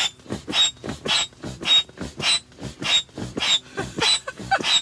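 Air mattress being blown up by mouth: a steady rhythm of breaths, a sharp blow into the valve and a quick intake in turn, about one in-and-out a second. A few short squeaks near the end.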